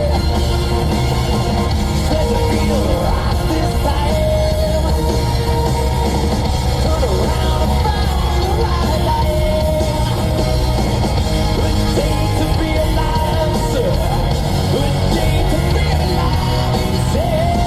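Heavy metal song playing loud, with yelled singing over a dense, steady band.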